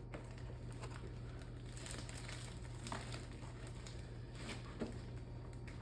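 Faint rustling and a few light scattered taps from painting materials being handled, over a steady low hum.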